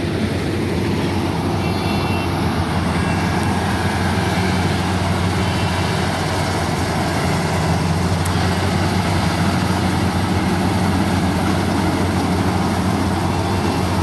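Sumo World rice combine harvester's engine running steadily under load as the machine cuts ripe paddy, a constant low drone with the clatter of the cutting and threshing gear over it.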